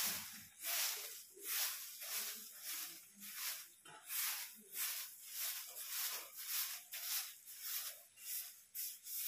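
Soft grass broom swishing across stone paving in steady strokes, about one a second.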